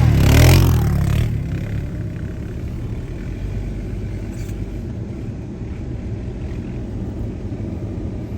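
Polaris Sportsman 450 ATV engine running, loud for about the first second, then dropping to a quieter, steady drone.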